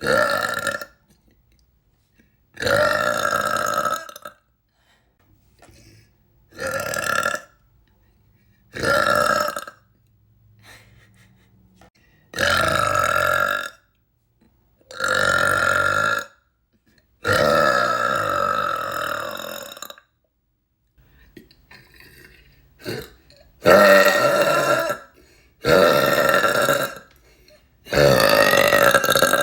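A woman burping deliberately and loudly, about ten long burps in a row with short pauses between them. Most last about a second; one in the middle runs about two and a half seconds.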